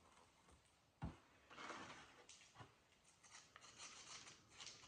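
Near silence with faint handling sounds: a soft knock about a second in, then light rustling and rubbing as a plastic piping bag of icing is picked up and handled.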